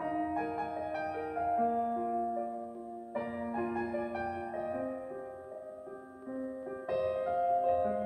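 Solo piano intro of a soundtrack ballad played back through Teufel Definion 3S loudspeakers and picked up in the room: slow held chords, with new ones struck about three and about seven seconds in.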